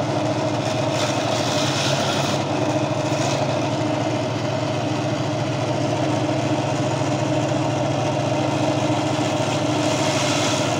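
Gryphon diamond bandsaw running with a steady motor hum while its blade cuts through a piece of Lobophyllia coral skeleton, with a hiss over the hum that rises and falls as the piece is fed through.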